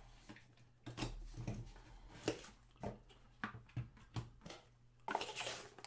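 A trading card hobby box being opened by hand: scattered short taps and rustles of cardboard and packaging, with a longer rustle about five seconds in.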